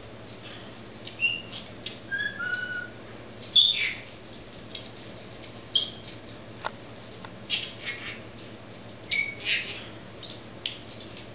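Senegal parrot giving short, high chirps, squawks and whistles, scattered through with pauses between, a few of them louder; one sharp click just past the middle.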